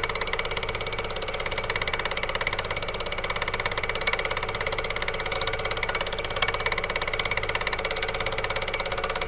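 Film projector running: a rapid, steady mechanical clatter with a constant whir.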